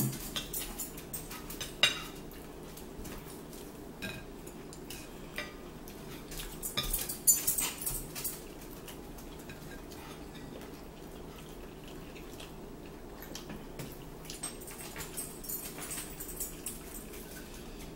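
A metal fork clicking and scraping on plastic dinner plates, with chewing, over a steady low hum. The clatter is busiest about seven seconds in.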